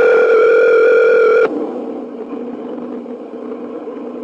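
Telephone ringback tone over a phone line: a steady electronic tone for about a second and a half, then it stops, leaving a faint steady line hum. This is the sign that the call is ringing through at the other end.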